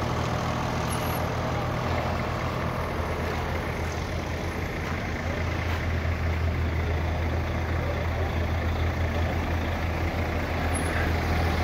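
Heavy diesel machinery running steadily with a constant low hum.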